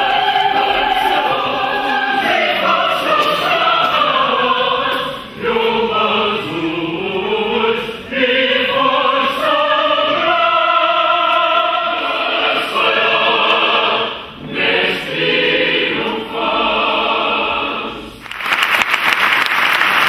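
Choir singing, in long phrases with brief breaks between them. About eighteen seconds in, the singing gives way to applause.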